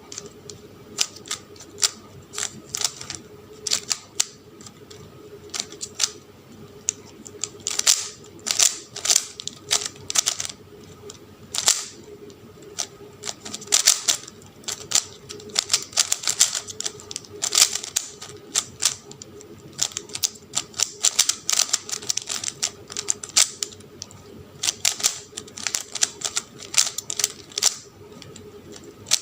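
Plastic Rubik's Cube being turned by hand: rapid, irregular clicking of the layers as they turn, coming in quick flurries with short pauses between.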